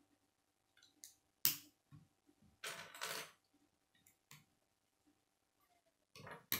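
Plastic K'nex rods and connectors snapping together and clicking as they are handled: a string of sharp clicks, the loudest about a second and a half in, with a longer plastic clatter around three seconds in.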